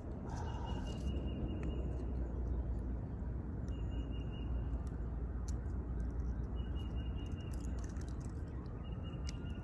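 A bird calling outdoors, repeating a short, high, steady note four times, about once every three seconds, over a steady low rumble.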